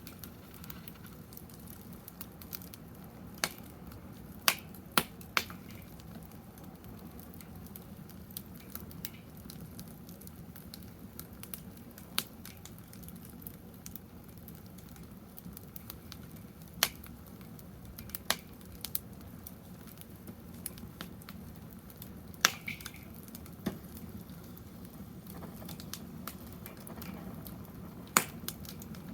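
Firewood burning in a fire pit, crackling with irregular sharp pops over a low steady rush.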